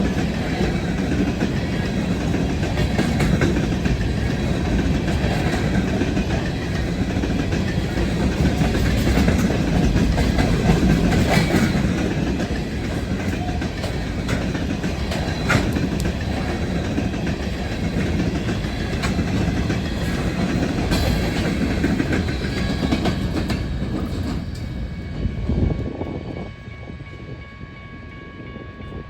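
A train rolling past, its cars' wheels clacking over the rail joints with scattered sharp clicks; the rolling noise falls away about 26 seconds in, leaving a few faint steady tones.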